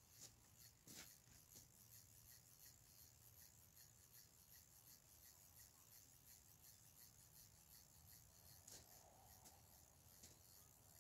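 Near silence: a fishing reel being wound in, with faint, regular ticks about three a second and a few louder clicks.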